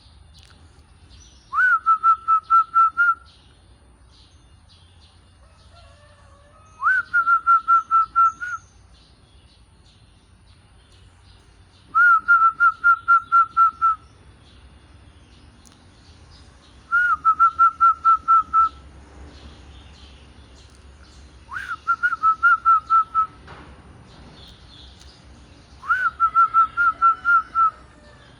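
Zebra dove (perkutut) cooing: six phrases about five seconds apart, each a short rising note followed by a quick run of clipped, staccato coos.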